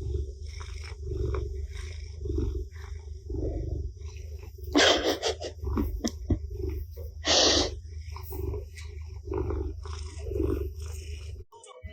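An animal's low, rhythmic rumbling, with two louder hissing bursts, one about five seconds in and one about seven and a half seconds in.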